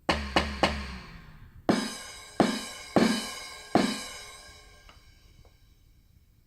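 Roland SPD-20 electronic percussion pad played through its sound output: three quick strikes with a deep low thud, then four single strikes a little under a second apart, each with a pitched ringing tail that fades out. These are the pad's drum sounds being tried out after one layered sound's level was turned down.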